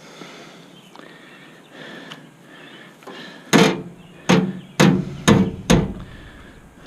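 Five sharp, ringing metal bangs about half a second apart, from the sheet-metal cabinet of an old Bard package heat pump being struck while a panel is worked back into place.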